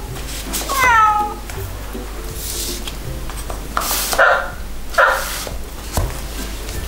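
A sound book's electronic sound chip plays a recorded cat meow that falls in pitch about a second in, then two short dog barks around four and five seconds in, as the animal pull-tabs are tugged. Soft background music runs underneath, with light card clicks from the tabs.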